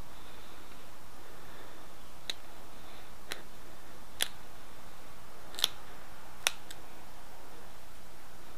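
Pressure flaking an Edwards chert arrowhead: about six sharp, separate clicks at irregular intervals as small flakes pop off the edge under a pointed pressure flaker, the loudest two in the second half.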